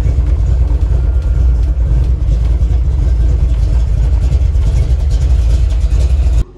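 Chevrolet's engine running, heard inside the cabin as a loud, steady deep rumble that cuts off suddenly near the end.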